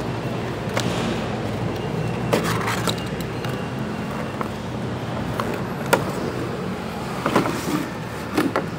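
Cardboard toy packaging being handled: short scrapes and clicks as the box end is opened and the inner sleeve and clear plastic tray are slid out, several coming close together near the end. All over a steady background hum.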